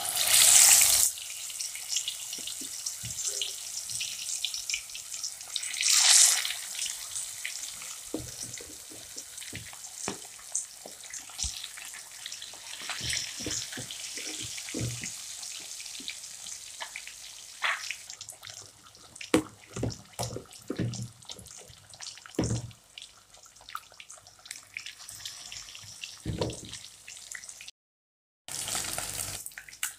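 Sheri fish pieces deep-frying in hot oil in an iron karahi: a loud burst of sizzling at the start, as the fish goes into the oil, and another surge about six seconds in, then a steady sizzle with scattered crackles and pops of spitting oil.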